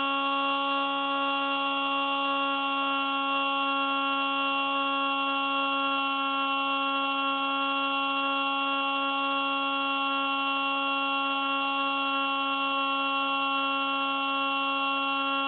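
Steady electric whine with many overtones from the Spy Hawk RC plane in flight, picked up by its onboard camera. It holds one unchanging pitch throughout.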